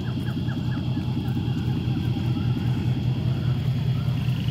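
Car engine running steadily, a continuous low rumble.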